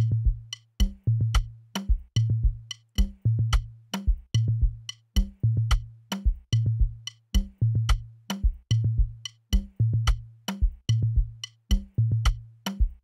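Programmed drum loop playing back through a high-pass-filtered mix. Deep, held bass-drum hits repeat in a steady pattern, each with a short higher note just before it, and short sharp percussion clicks fall between them.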